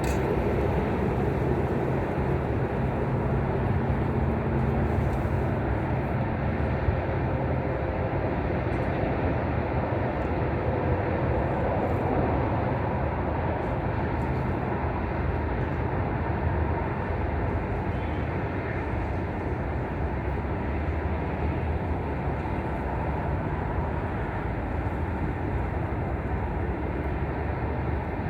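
Wind blowing against the microphone: a steady low rushing noise that holds level throughout.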